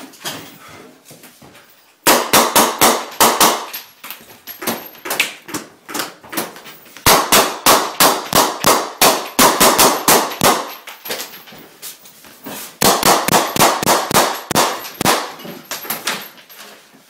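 AR-15 rifle firing rapid shots, several a second, in three long strings starting about two, seven and thirteen seconds in, with sparser shots between.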